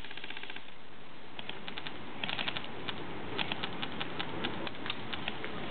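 Airsoft guns firing: rapid clicking bursts of shots, a dense burst at the start and more short bursts a second or two later, then scattered single shots.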